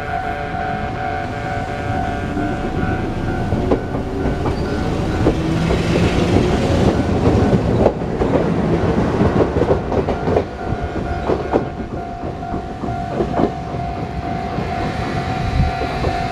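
A Japanese level-crossing alarm ringing with a steady electronic tone while a train rolls over the crossing. Its wheels clatter over the rail joints, loudest in the middle of the passage, about six to eight seconds in.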